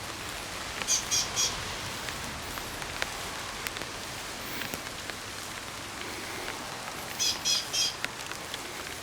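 Steady rain falling, with a bird giving two bursts of three short, sharp, high calls: one about a second in and another about seven seconds in.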